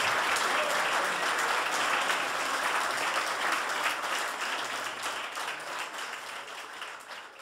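Audience applauding, the clapping dying away over the last few seconds.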